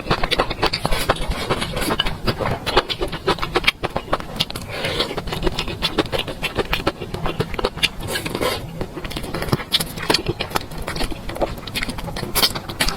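Close-miked eating sounds: a person chewing and smacking a mouthful of food, with many quick, irregular clicks and taps throughout.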